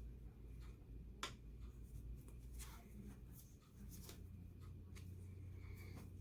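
Faint handling of packaging: scattered small clicks, ticks and rustles, the sharpest about a second in, over a low steady hum.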